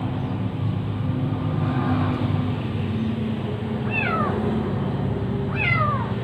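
Hungry kitten meowing twice, about four seconds in and again near the end, each a short high cry that falls in pitch. A steady low rumble runs underneath.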